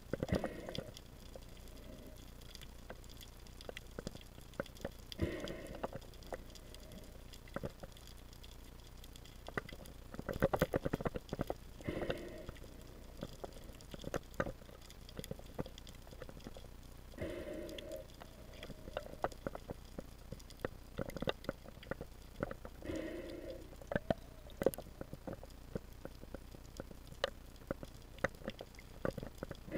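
Underwater sound: a steady scatter of small clicks and crackles, with a muffled burst of noise every five to six seconds.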